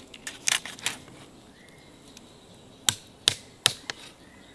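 Large knife chopping an armadillo carcass into pieces against a wooden tree stump: a few sharp chops in the first second, then three more in quick succession about three seconds in.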